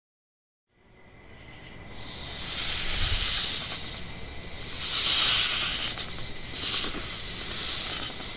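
A snake hissing in about three long swells over a steady high chirring of insects. It starts about a second in.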